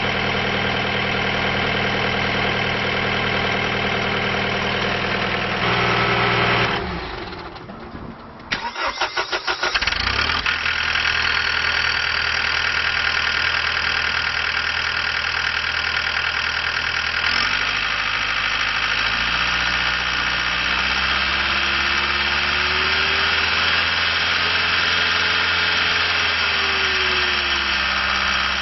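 John Deere 318D skid steer's diesel engine running, shut off about seven seconds in, cranked over by the starter and restarted after a couple of seconds, then running steadily again, its note changing about halfway through.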